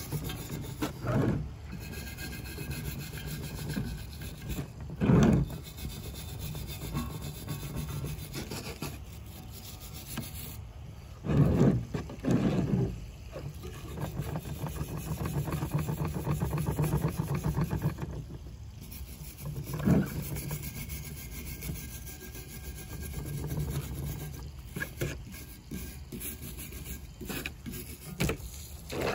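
A hand brush scrubbing soil off a rough cast-aluminum anthill sculpture: a steady rasping rub, with several louder scrapes against the metal.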